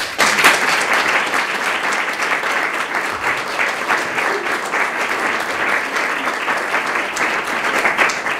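Audience applauding: a dense, steady round of hand clapping that breaks out suddenly at the end of a song.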